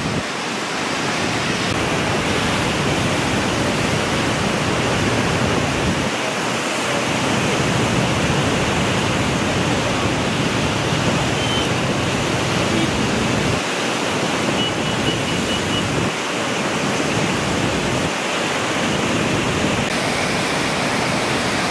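Muddy floodwater of a river in spate rushing past, a steady dense churning rush of water with no letup.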